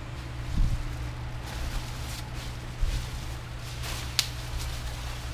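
ATV suspension parts being handled: a few soft knocks and one sharp click about four seconds in, over a steady low hum.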